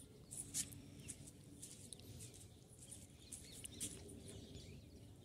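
Faint, irregular snips of scissors cutting short hair, a few quick snips at a time with short pauses between.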